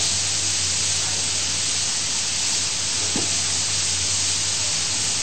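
Steady hiss with a low steady hum underneath: the background noise of a speech recording during a pause in the talk.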